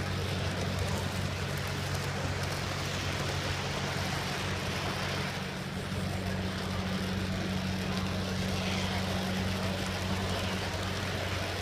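HO-scale model train running along the layout track with the camera riding on it: a steady rolling rumble with a constant low hum underneath.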